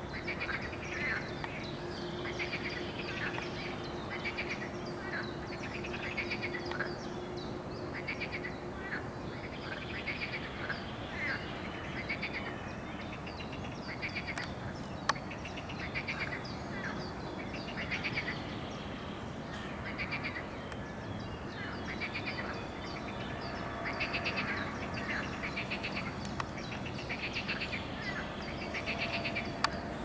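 Wetland animal calls from the pond, short rasping pulsed calls repeating about once a second without a break. A steady low hum sits under them for the first third.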